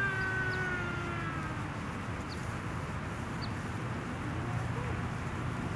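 A long sheep bleat, sliding slightly down in pitch, trails off about a second and a half in. It sits over a steady low background rumble, with a few faint, short, high chirps.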